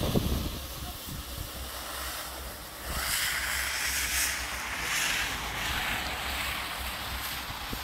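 Wind buffeting the microphone: a low rumble throughout, with a rushing hiss that swells in about three seconds in and rises and falls.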